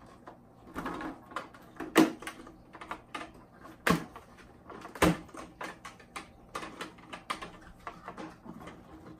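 Plastic clicks and knocks from a canister filter being handled as its latch clamps are undone, with sharper snaps about two, four and five seconds in.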